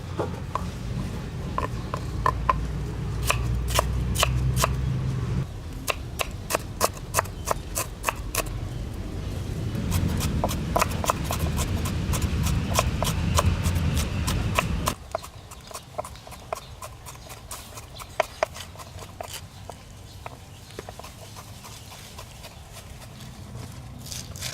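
A kitchen knife chopping on a cutting board: runs of sharp, repeated knocks, several a second. A low rumble underneath cuts off suddenly about fifteen seconds in.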